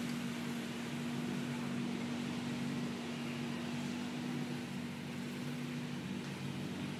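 A steady mechanical hum with one constant low tone and a light hiss, even in level throughout.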